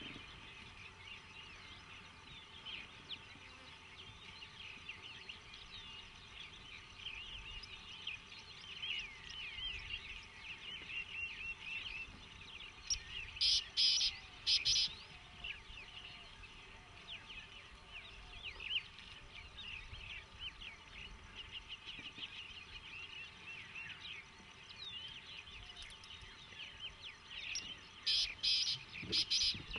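Many birds chirping and calling over faint outdoor background noise. A louder, clipped call repeats a few times about halfway through and again near the end.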